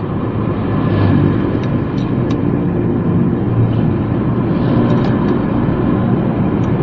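Steady rumble of nearby motor traffic. A few faint metallic clicks come from a wrench working a motorcycle's rear axle nut.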